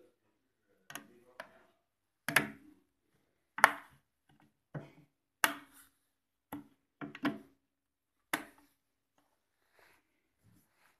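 Hands handling a rotary evaporator's heating bath and glass flask: about ten sharp knocks and taps at irregular intervals, several of them loud.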